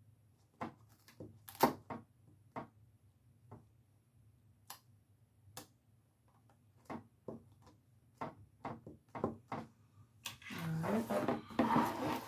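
Irregular small clicks, taps and knocks of craft materials and tools being handled on a work table, followed about ten seconds in by a denser, louder stretch of rustling and knocking.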